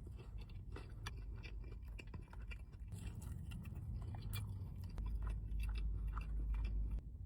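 Close-miked mouth eating sounds: chewing with many small crunches and wet mouth clicks. A low hum grows louder about five seconds in.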